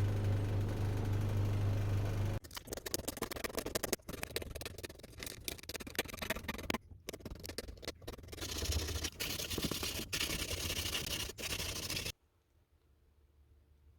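A motor-driven workshop machine running with a steady hum, which stops abruptly after about two seconds. Then about ten seconds of irregular scraping and clicking from hand work on small parts, ending suddenly in near quiet.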